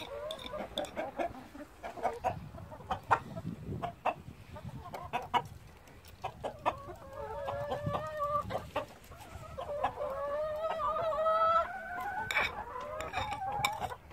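A flock of chickens clucking in many short, sharp notes, with long drawn-out calls about seven seconds in and again from about ten seconds to near the end.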